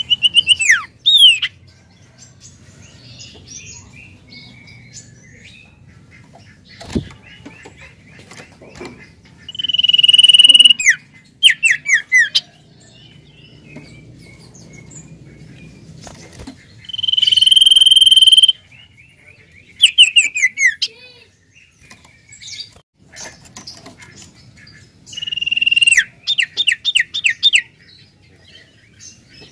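Common iora (sirtu) singing in a cage: long drawn-out whistles held on one pitch, each followed by a quick run of falling notes, in four bouts with pauses between. A single sharp knock comes about seven seconds in.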